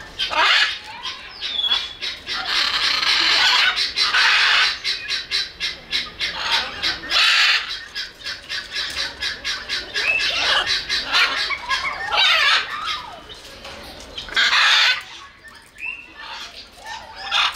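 Macaw squawking: repeated loud, harsh calls at irregular intervals, with thin whistled notes that slide up and down between them.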